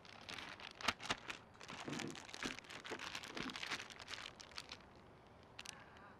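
Plastic zip-top bag crinkling and crackling as it is handled, with fish fillets being packed into it. The crackling fades out after about four seconds, leaving a few scattered clicks.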